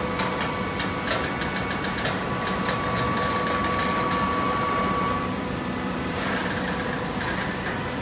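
TCM horizontal hydraulic baler for shredded paper running, a steady machine hum with a steady whine that stops about five seconds in. A rapid run of clicks comes in the first few seconds, and a short hiss about a second after the whine stops.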